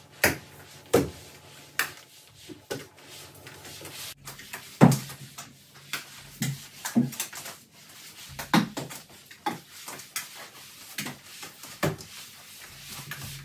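Irregular knocks and clunks of household things being handled and set down in a small room during cleaning, about a dozen strikes spread through the stretch.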